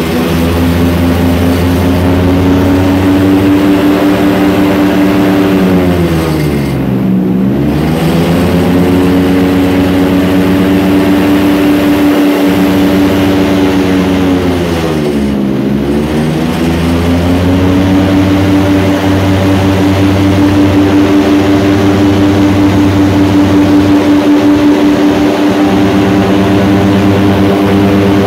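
Airboat engine and propeller running loud and steady at speed. The engine speed drops and picks back up twice, about seven and fifteen seconds in.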